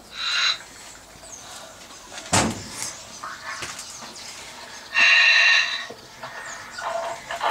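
Loud calls from an animal: a short one at the start and a longer one about five seconds in, with a single thump between them.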